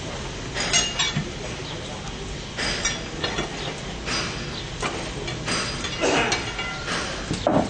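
Irregular metallic clinks and knocks, some ringing briefly, about every second, over a steady low rumble, around a steam locomotive being readied with its fire lit.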